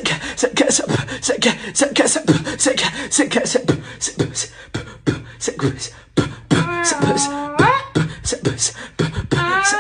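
Music with a fast, even beat of sharp percussive hits; about six and a half seconds in, a gliding pitched melody comes in over the beat.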